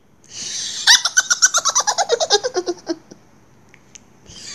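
A woman's high-pitched ghostly cackle: a breathy hiss, then a rapid run of laughs, about ten a second, falling steadily in pitch. Another laugh begins near the end.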